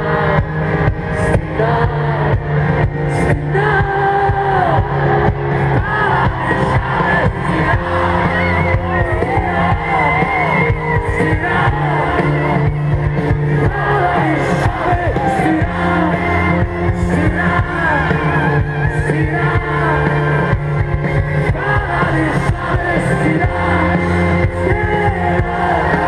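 Loud live band music through a concert sound system: a steady beat, sustained bass notes and a sung melody.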